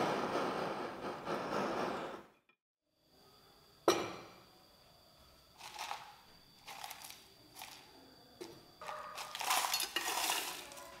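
Gas torch flame hissing for about two seconds, then after a brief silence a sharp knock and scattered light clinks as white granules are tipped into a stainless steel bowl, and near the end water poured from a plastic bottle into the bowl.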